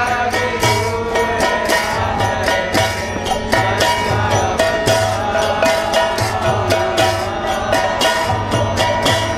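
Devotional bhajan: a lead voice singing into a microphone over brass hand cymbals (kartals) clashing in a fast, steady rhythm and the deep strokes of a double-headed mridanga drum.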